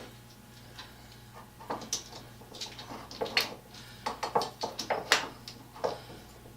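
Irregular wooden knocks and clicks as a glue-filled wooden end stop is worked onto the end of a wooden bench vise handle. The loudest knock comes about five seconds in.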